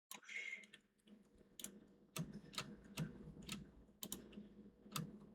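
Computer keyboard keys clicking in uneven, separate taps, a few to several a second.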